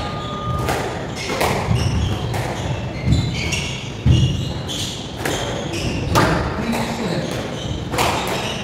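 Squash rally: the ball struck by rackets and rebounding off the court walls, with sharp knocks at irregular intervals, roughly one a second.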